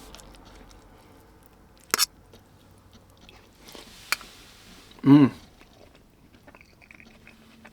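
A person chewing a mouthful of lentils and rice, quietly. There is a sharp click about two seconds in and a fainter one about four seconds in. About five seconds in comes a short vocal sound.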